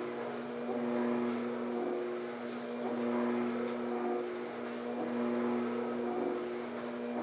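Electric motor of a motorised spinal traction table humming, swelling and easing about every two seconds as it cycles the stretch on the patient's lower back.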